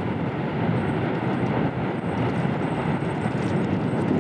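Low, steady roar of an EF-3 tornado heard at close range.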